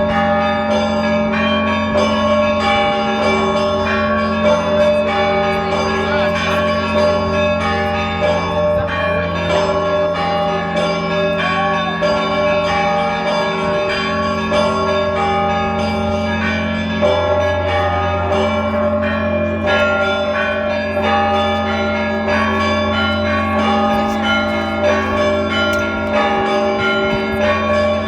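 Several church bells rung together in a continuous peal. Deep bells hum steadily beneath rapid, frequent strikes of smaller, higher-pitched bells.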